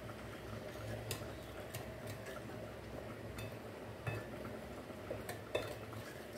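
Metal spoon stirring melted butter sauce in a ceramic plate, with light scattered clinks and scrapes of metal on china and a few sharper taps.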